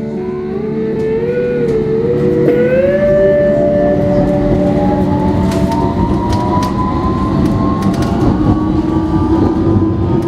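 London Underground train pulling away: the traction motors give a whine that climbs steadily in pitch over several seconds, over a loud rumble of the wheels with scattered clicks.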